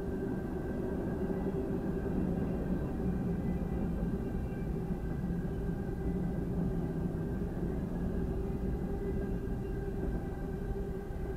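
Freight train of tank cars and freight cars rolling through a grade crossing: a steady low rumble with a steady hum, heard from inside a stopped car.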